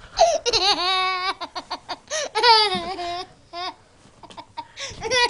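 A toddler laughing hard: three long, high-pitched laughs with short, quick laughs between them.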